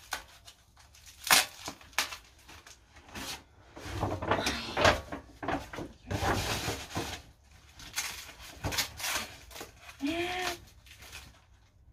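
Tissue paper and a paper gift bag rustling and crinkling as a gift is unwrapped, with scattered knocks as a box is handled.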